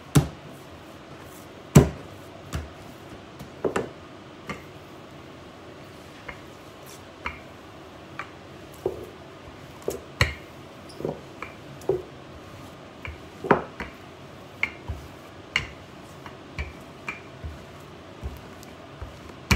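Irregular knocks and taps of hands and a wooden rolling pin working pizza dough on a kitchen countertop, about one or two a second, the loudest knock nearly two seconds in.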